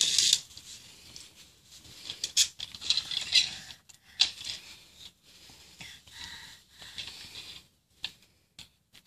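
A small plastic toy Thomas the Tank Engine train being pushed and handled on a pillow: soft, irregular scraping and rustling with scattered small plastic clicks.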